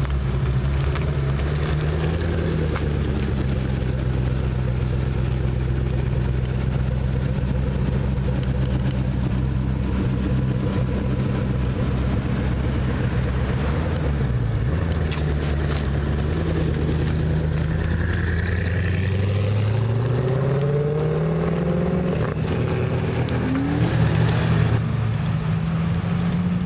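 Koenigsegg One:1's twin-turbo V8 running at low revs as the car rolls off slowly on light throttle. Its low, steady note dips in pitch near the middle and climbs gradually about two-thirds of the way through before levelling off.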